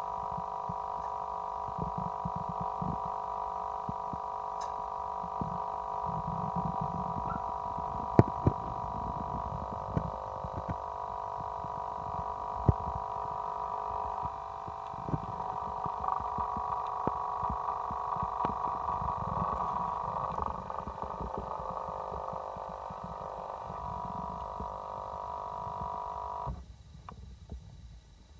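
A steady, many-toned hum runs under irregular low thumps and sloshing from shod feet moving in a bathtub of water. The hum cuts out suddenly near the end.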